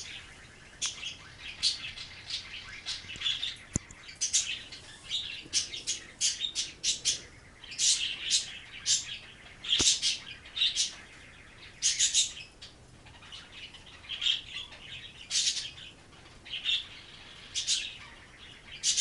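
Short, high-pitched chirps repeating at irregular intervals, dozens of times.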